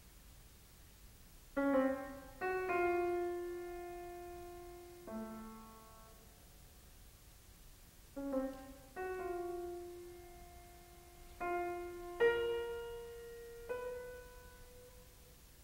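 Piano alone playing a slow, sparse phrase: single notes and chords struck a second or two apart, each left to ring and fade, in two similar groups. This is the opening of the trio's slow Lento theme.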